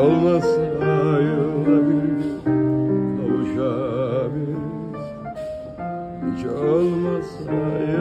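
A man singing with strong vibrato, accompanied by a grand piano.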